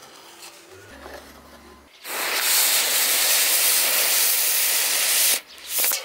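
A small wooden cannon's charge of match-head powder burning off with a loud, steady hiss for over three seconds. It cuts off abruptly, then a second short hiss follows just before the end.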